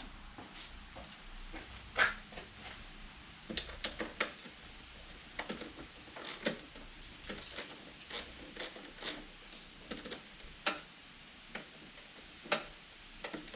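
Hand wrench working bolts loose on a dirt bike: irregular sharp clicks and clinks of the tool against bolts and parts, one every second or so.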